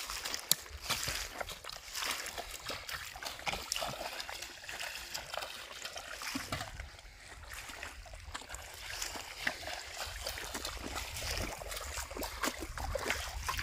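Shallow muddy pond water splashing and trickling as someone wades barefoot through it and works with a metal pot, with many short splashes throughout.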